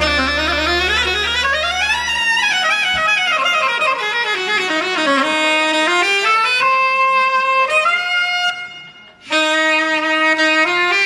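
Saxophone playing a fast solo line of runs sweeping up and down, with a low held backing note that drops out about two seconds in. The line breaks off briefly near the end before picking up again.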